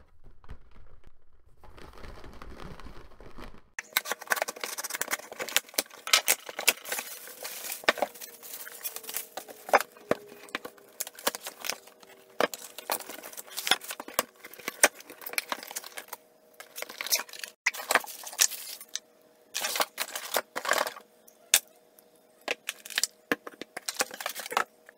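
Hands rummaging through a cardboard shipping box: plastic bubble wrap and packing paper crinkling and crackling, with knocks and scrapes of cardboard, in a dense, irregular run of sharp crackles. It starts a few seconds in, after a low rumble.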